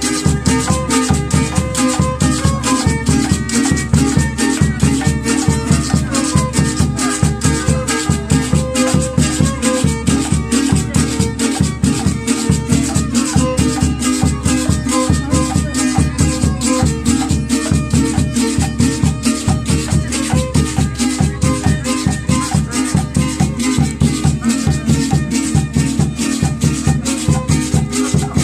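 Live music for the huehuentones dance: a fast, steady beat with a short repeating melody over it.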